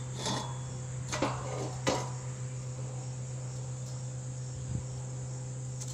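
Steady high insect chirring over a constant low hum, with three light knocks in the first two seconds.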